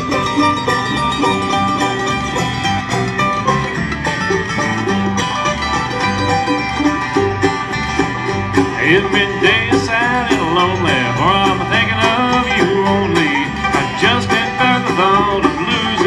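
Live bluegrass band playing, with fast banjo picking over guitar. A melody line with wavering, sliding pitch comes in about halfway through.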